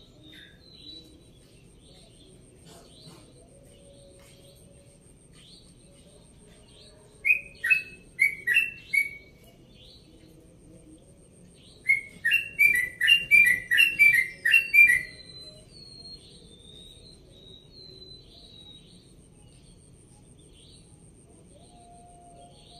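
Yellow-vented bulbul (trucukan) singing two short runs of quick, loud, repeated chirping notes: about five notes some seven seconds in, then a longer run of about eight a few seconds later. Fainter thin bird calls and a faint steady high tone run behind.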